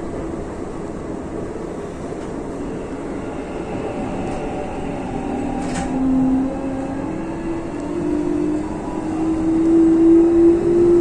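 Electric commuter train running on track, with steady wheel and running noise. From about halfway through, a motor whine rises slowly in pitch and grows louder as the train picks up speed. A faint click comes a little before the middle.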